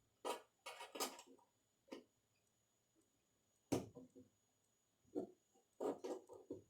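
A few light, separate clicks and knocks with quiet gaps between, as of small objects being handled and set down.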